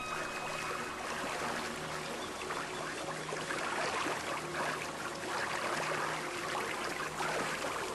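River water rushing and splashing over falls: a steady, dense wash of running water.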